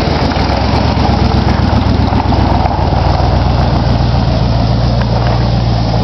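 1964 Ford F-100 pickup's engine running steadily with the hood up.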